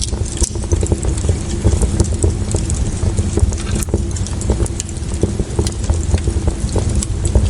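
Wood fire crackling, with frequent sharp irregular pops and snaps over a steady low rumble and faint hum.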